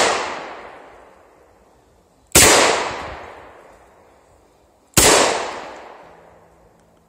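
Handgun shots from a stainless revolver: two shots about two and a half seconds apart, each echoing away over about two seconds. The dying echo of a shot fired just before is heard at the start.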